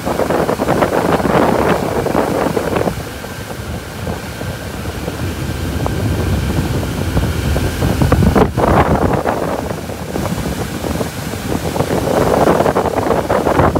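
Motorboat under way at speed: the engine's drone mixed with the rush of the churning wake and wind buffeting the microphone, swelling and easing in surges.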